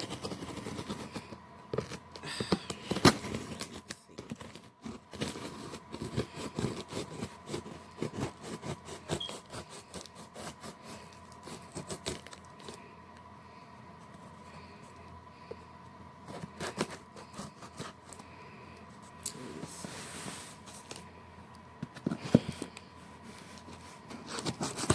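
A shipping box being opened by hand: tape cut and pulled away, cardboard flaps and packing material rustling and scraping, with many small irregular clicks and knocks.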